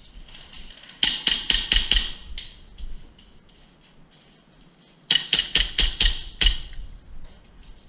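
Airsoft BB gun firing two rapid strings of about seven sharp shots each, about four seconds apart, at roughly five shots a second.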